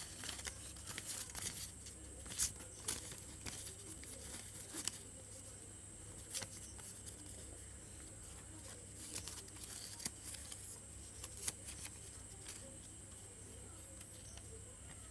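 Paper cut-out triangles being handled and shifted on a textbook page: faint, scattered rustles and light paper ticks, over a steady low hum.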